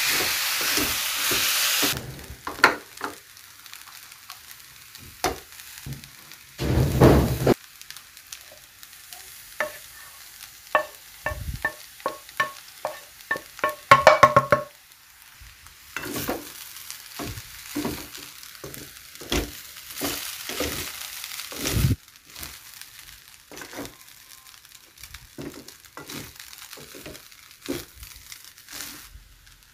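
Stir-frying rice in a metal kadai: a steady sizzle for the first two seconds, then repeated scraping and knocking strokes of a wooden spatula against the pan. A run of short ringing clinks comes about halfway through.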